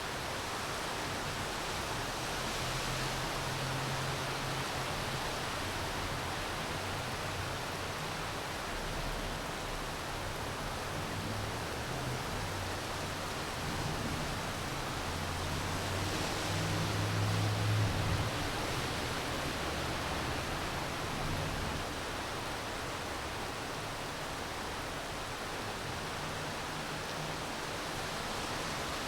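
Steady rain falling, an even hiss. A low rumble swells and fades about sixteen to eighteen seconds in.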